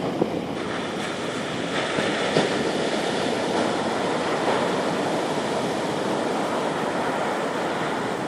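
Sea surf washing onto a beach: a steady rush of water noise with no clear breaks between waves.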